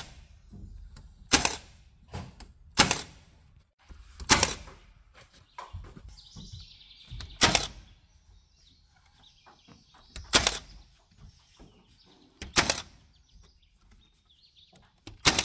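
Cordless nail gun firing nails into wooden door trim: about seven sharp shots, spaced irregularly one to three seconds apart. Faint bird chirps between shots.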